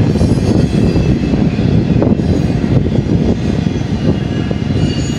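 Empty intermodal spine cars of a freight train rolling past close by: a steady, loud rumble of steel wheels on rail, with faint high wheel squeal over it.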